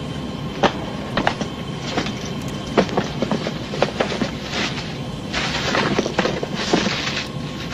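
Steady low hum inside an airliner, with scattered knocks, footsteps and clothing rustles from people moving through the cabin. A longer stretch of hissing rustle comes in the second half.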